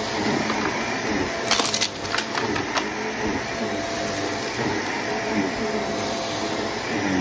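Upright vacuum cleaner running over carpet with a steady hum, with a quick cluster of crackles and clicks about one and a half seconds in as it sucks up scattered debris.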